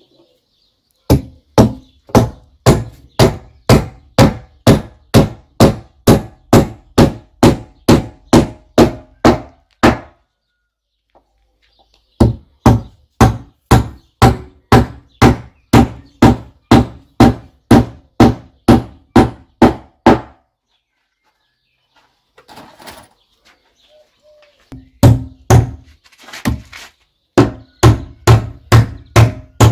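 Hammer driving long nails into wooden deck boards on joists, steady blows at about two a second with a ringing tone to each strike. The blows come in runs broken by two short pauses.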